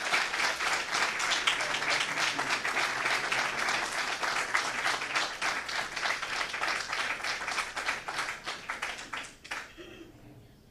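Audience applauding: a dense spread of many hands clapping that thins toward the end and stops abruptly about nine and a half seconds in.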